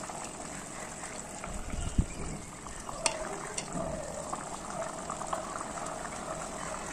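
Curry gravy bubbling at a steady boil in an aluminium pot, with small crackling pops. A single dull thump comes about two seconds in, and a sharp click just after three seconds.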